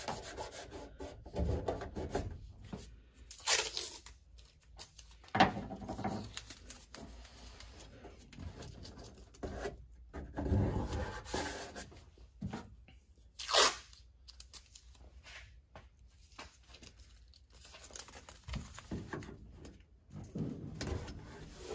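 Blue painter's tape being pulled off the roll and torn, heard as several short rips at irregular intervals.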